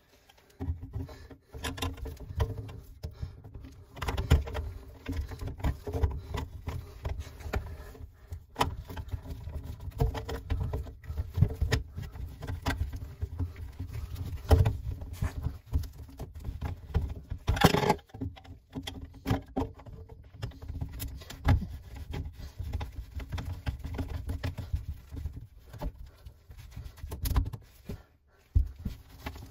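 Gloved hands fitting black plastic drain pipe fittings (elbow and trap) together under a kitchen sink: irregular rubbing, scraping and small plastic knocks, with one sharper knock a little past halfway.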